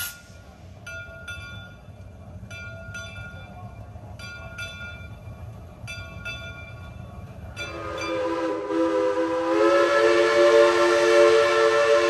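Steam whistle of a 1923 Shay geared steam locomotive blowing one long chord of several notes. It starts a little past halfway through and gets louder about two seconds later. Before it, regular pairs of light metallic clicks come from the moving train.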